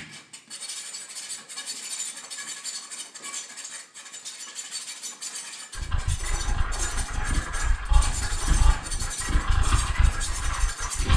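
Improvised electronic music from a Max/MSP and monome laptop setup: a crackling hiss of noise with small clicks, joined about six seconds in by a sudden heavy bass rumble that surges and wavers like an engine.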